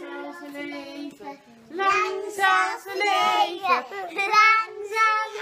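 Children singing together, softly at first and louder from about two seconds in.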